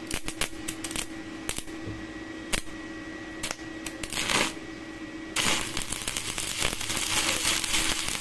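Stick-welding electrode on a Spark 400 MMA DC inverter welder set to about 250 A, tapped and scratched on a steel plate to strike the arc, giving sharp clicks and a short sputter about four seconds in. About five seconds in the arc catches and keeps burning with the continuous crackle of MMA welding, over a steady hum.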